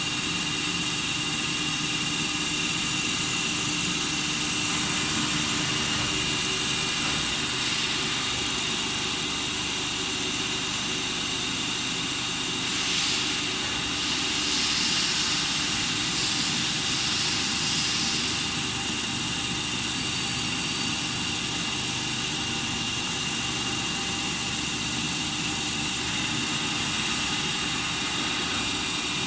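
Friction stir welding machine running steadily on a cold plate, with a constant high-pitched tone over an even mechanical noise. About halfway through, a louder hiss rises for several seconds, then settles back.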